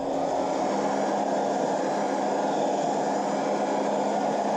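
Electric hot-air blower running with a steady whir, switched on at the start, heating a nitro RC engine's cylinder to free a piston stuck at the top of the sleeve.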